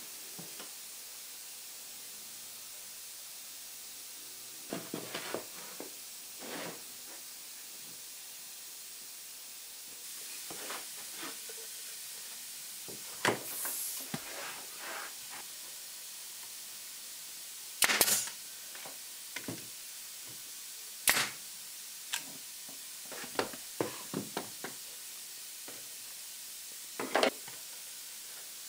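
Small wooden drawer parts knocking and clicking as they are handled on a workbench, with a short hiss of air and a few sharp snaps from a pneumatic brad nailer firing, the loudest two about a third and two thirds of the way through.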